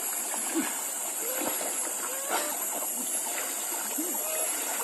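Light water splashing and stirring as a hooked fish is fought at the surface, over a steady high hiss.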